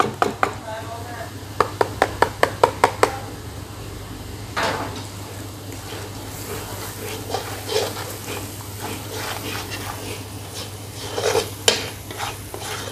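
Slotted metal spatula scraping and knocking against a metal kadai while spices are stirred into frying masala, over a light sizzle. A quick run of about eight sharp taps comes around two seconds in, and there are scattered scrapes after it, with a steady low hum underneath.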